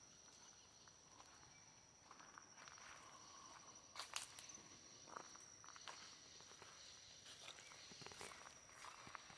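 Faint footsteps on the forest floor, a few scattered steps with the loudest snap about four seconds in, over a steady high-pitched insect drone.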